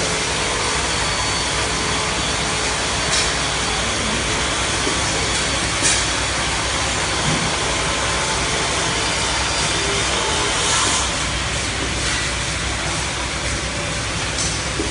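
Automatic auger powder-filling and conveyor line running: a steady machine din, with a few sharp clicks now and then.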